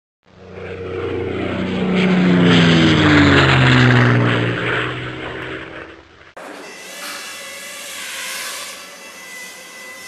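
An aircraft flyby sound effect: a loud drone that swells, falls in pitch as it passes and fades out about six seconds in. It then cuts suddenly to the WLtoys V939 Ladybird quadcopter in flight, its small electric motors and propellers giving a steady high whine.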